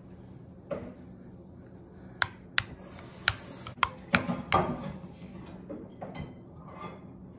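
Metal spoon clinking and scraping against a ceramic bowl as oatmeal is scooped. There are a few sharp, separate clinks from about two seconds in, then a busier run of clinks a little later.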